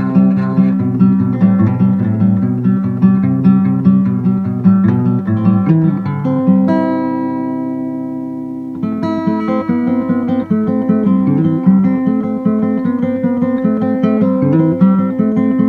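Background music on acoustic guitar: quick picked notes, with one chord left ringing and fading for a couple of seconds about halfway through before the picking starts again.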